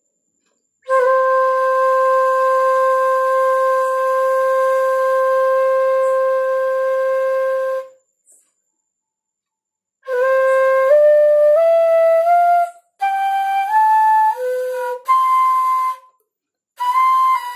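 C-middle bamboo bansuri flute playing its scale: one long held note first, then, after a pause, notes stepping up one by one and back down in short phrases.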